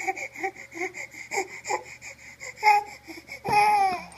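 Baby crying in short, broken sobs, then one longer, louder wail about three and a half seconds in.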